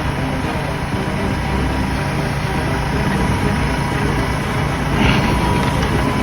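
Massey Ferguson MF5480 tractor's diesel engine running steadily.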